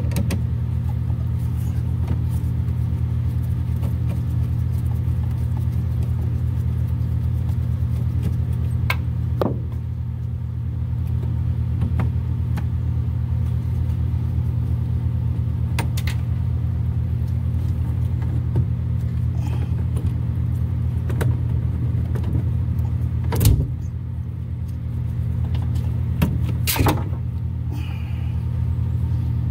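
Steady low hum throughout, with scattered sharp metallic clicks and knocks from a screwdriver and hands working the clamp of the heater's vent-flap control cable. The loudest knock comes about two-thirds of the way in.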